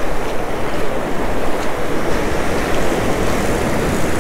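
Ocean surf breaking and washing up the beach, a steady rush of noise, with wind on the microphone.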